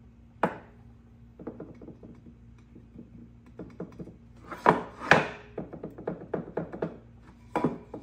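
A pine board being handled and set down on a table saw's metal top: a string of wooden knocks, the loudest two about halfway through, with lighter taps in between.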